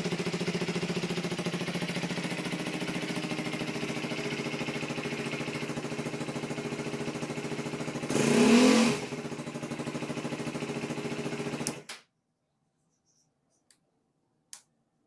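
Z250 motorcycle engine idling through its homemade removable sport exhaust, with one short blip of the throttle about eight seconds in, then the engine is switched off a few seconds later. Two faint clicks follow near the end.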